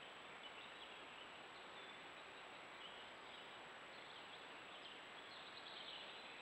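Near silence: the steady hiss of a trail camera's microphone, with faint high bird chirps now and then.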